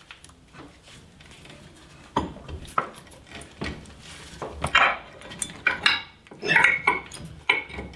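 Hand tools and steel suspension parts clinking and clattering: a few separate clinks about two seconds in, then a quicker run of ringing metallic clatter in the second half.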